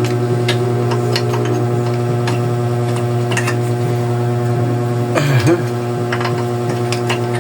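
A steady low hum throughout, with scattered light clicks and taps of bicycle crank parts being handled, and a short louder rattle about five seconds in.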